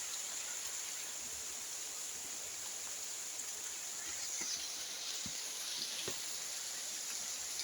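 Steady spring rain falling, an even hiss with a few separate drops landing near the middle.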